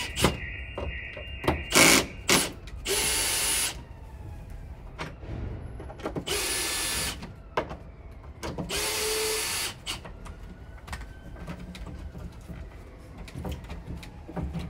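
Cordless drill-driver backing out the screws that hold a sash window's baton rod, in several short runs of about a second each, with light clicks and handling between.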